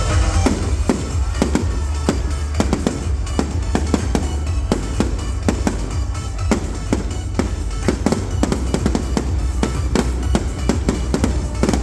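Fireworks going off in a rapid, irregular string of bangs, several a second, over loud music with a heavy bass.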